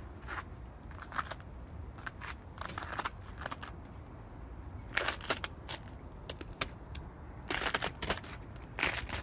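Footsteps crunching in snow: a series of short, irregular crunches, loudest in clusters about five seconds in and near the end.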